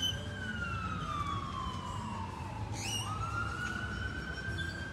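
Emergency vehicle siren in a slow wail, its pitch sliding down over about three seconds, then sweeping sharply up and climbing slowly again. A low rumble continues underneath.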